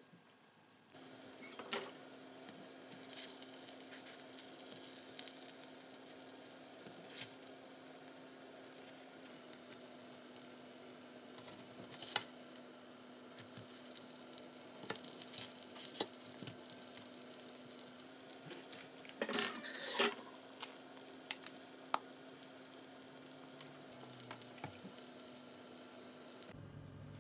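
Kuku sabzi (herb and egg omelette) frying in oil in a non-stick pan: steady sizzling with scattered clicks and scrapes of a spatula against the pan as the pieces are turned. The clicks come thickest and loudest about two-thirds of the way through. A steady low hum runs underneath.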